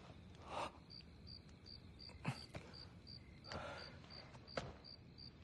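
Cricket chirping steadily, about three short high chirps a second, with a few faint rustles and soft clicks of movement.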